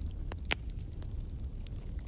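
Wood fire in a fireplace burning with a steady low rumble and scattered crackles and pops, the sharpest pop about half a second in.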